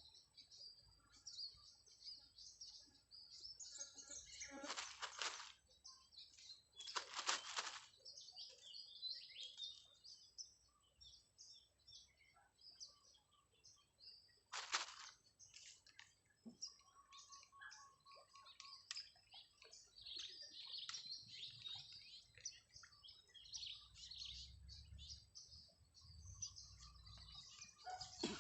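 Faint, many short high chirps of small birds calling. Three brief bursts of noise stand out, the loudest about seven seconds in.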